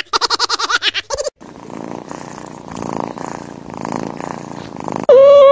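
Domestic cat purring, a low rumble that swells and fades with each breath. It is preceded by a brief run of rapid pulsing grunts, and near the end a loud, steady, drawn-out pitched call begins.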